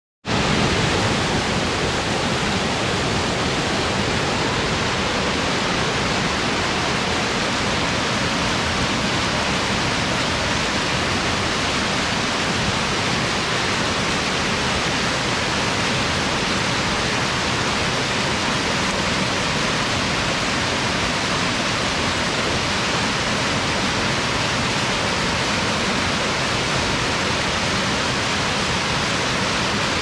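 Small waterfall tumbling over rocks and fallen logs: a steady, even rush of water.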